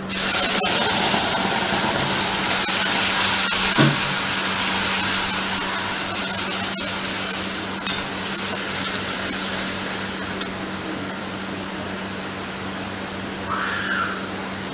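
Hot oil in an iron kadai sizzling loudly the moment ingredients are tipped in, then slowly dying down as an onion, garlic, ginger and tomato paste is poured in and stirred with a spatula. A few sharp clinks of utensils on the pan, over a steady low hum.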